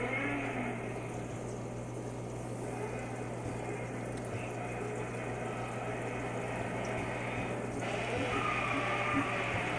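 Aquarium filter running: a steady trickle of moving water over a constant low hum.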